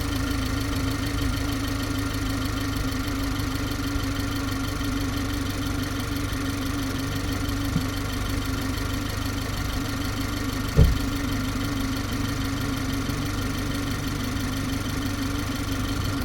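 BMW G20 330i's 2.0-litre turbocharged four-cylinder running steadily at idle, with a constant hum and thin steady whining tones over it. A faint click comes about eight seconds in, and a single short thump about eleven seconds in.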